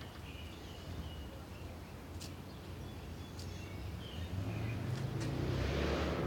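Birds chirping, with a few light clicks. From about four seconds in, a broad rushing noise rises and grows louder toward the end.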